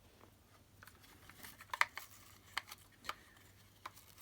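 Light plastic clicks and knocks as the brush bar is pushed back into the Dyson V8's motorised head to seat it: a few separate sharp clicks, the loudest a little under two seconds in.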